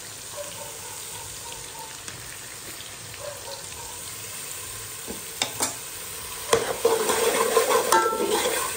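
Spice masala sizzling in hot oil in a steel pot, stirred with a metal ladle that scrapes and clinks against the pot. The stirring grows louder and busier over the last two seconds.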